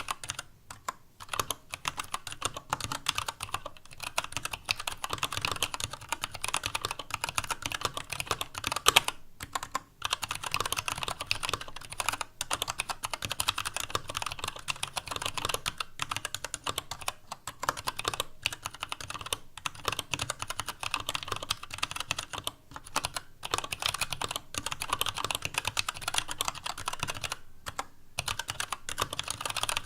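Fast, continuous typing on a TADA68 mechanical keyboard with Gateron Brown tactile switches, a stainless steel plate and PBT keycaps: a dense run of clacking keystrokes broken by short pauses every few seconds, with one loud key strike about nine seconds in. The clack has the hollow sound the owner puts down to empty space in the ABS case, along with some desk noise.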